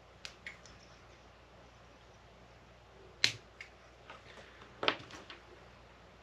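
A handful of short, sharp clicks and taps from small tools being handled at a jig-tying vise, the loudest about three seconds in and another just before five seconds.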